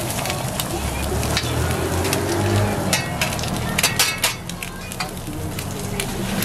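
Eggs frying on an oiled flat-top griddle inside a rectangular steel egg mould, a steady sizzle. A few sharp clicks about three to four seconds in come from a steel spatula working on the griddle.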